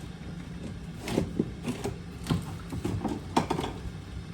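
Kitchen items being moved about in a search for a spice jar: a scatter of short knocks and clicks over a steady low hum.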